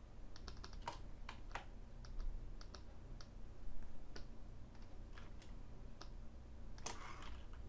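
Computer keyboard keys clicking at irregular intervals as shortcuts are pressed, a few quick taps close together in the first second or so and a short burst of clatter near the end.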